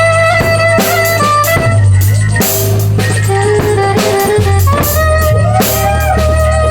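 A live improvised band jam: a drum kit keeps a steady beat under a held, gliding lead melody and a heavy bass line, with guitar.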